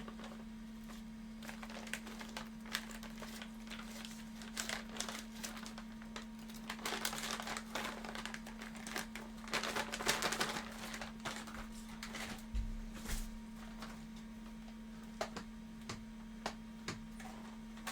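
Rustling, crinkling and light knocks of plastic-wrapped 3D-printer filament spools being rummaged through and moved around, over a steady low hum. A couple of dull thumps come about two-thirds of the way in.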